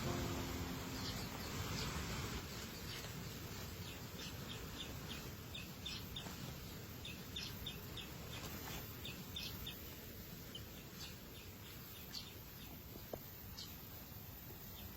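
A small bird chirping: short, high chirps, singly and in quick runs of several, over a steady background hiss.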